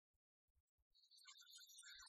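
Near silence with a few faint low thumps, then faint background music fades in about a second in.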